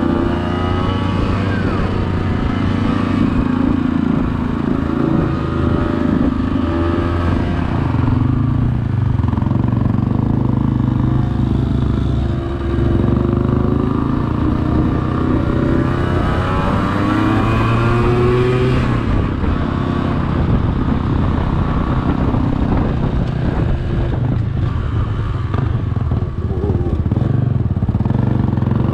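Off-road motorcycle engine running at low speed, its pitch rising and falling again and again as the throttle is opened and closed.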